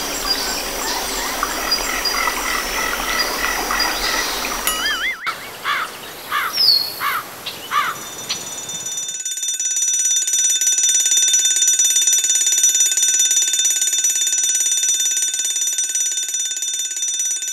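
A night-time chorus of frogs chirps. About five seconds in it gives way to a few wavering bird chirps, and from about nine seconds an alarm clock rings steadily, growing louder.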